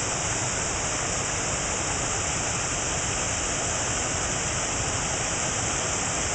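Steady rush of flowing stream water, an even hiss that does not change.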